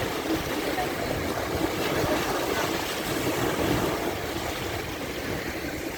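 Sea waves washing onto a sandy beach in a steady surf wash that eases slightly near the end.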